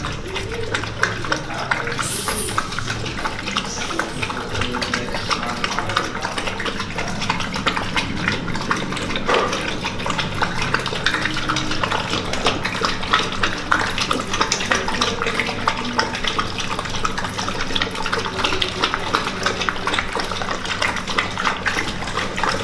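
Two pit bull-type dogs lapping milk from a plastic basin: a rapid, steady stream of wet laps and tongue slaps.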